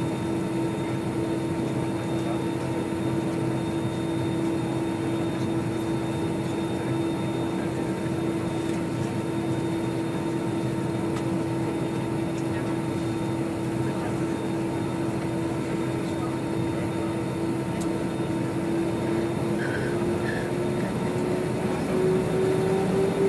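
Airbus A320-214's CFM56 jet engines heard from inside the cabin: a steady whine over a rushing hum, the whine rising slightly in pitch near the end.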